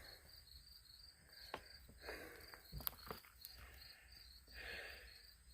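Crickets chirping faintly in an even, rapid rhythm of about four or five chirps a second, with a few faint clicks and rustles.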